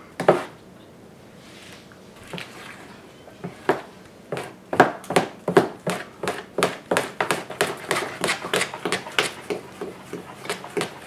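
A spoon beating thick, softened cream cheese in a plastic mixing bowl to break up the lumps. After a knock at the start and a quieter few seconds, it settles into a steady rhythm of sharp scraping taps, about three a second.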